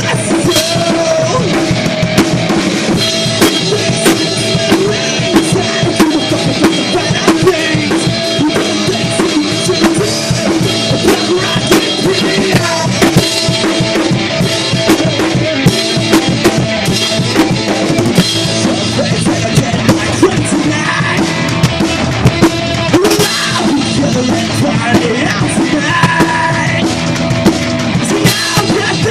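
A punk rock band playing, with a busy drum kit prominent: bass drum and snare hits over sustained guitar and bass.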